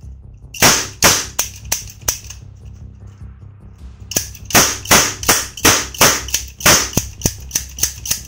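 Toy cap-gun revolver firing caps: a quick string of about five sharp bangs, a pause of about two seconds, then a longer run of about a dozen bangs at roughly three a second.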